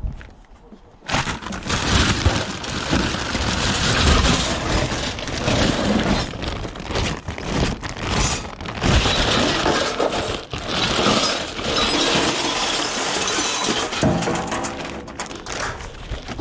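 Scrap metal clattering and crashing as it is thrown or tipped onto a scrapyard pile, a continuous jumble of impacts starting about a second in.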